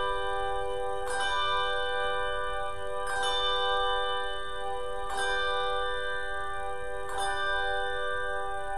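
A single bell tolling: the same note is struck about every two seconds, four strokes in all, and each stroke rings on into the next.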